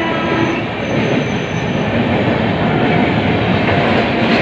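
Passenger train coaches rolling along beside the platform: steady rumble of wheels on the rails with some clickety-clack.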